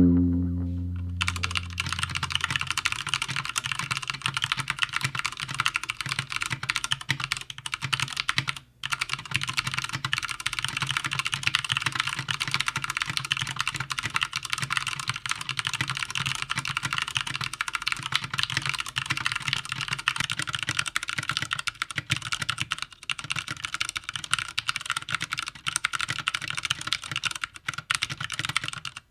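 Steady fast typing on a Poker II mechanical keyboard with linear Cherry MX Red switches and thick PBT keycaps, in an MKC aluminum case. It is a dense run of key strikes with one brief pause about a third of the way in. Guitar music fades out in the first second or so.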